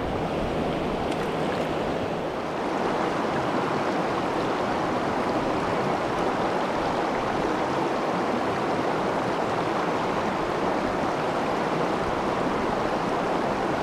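Shallow river running over rocks and rapids: a steady rush of moving water.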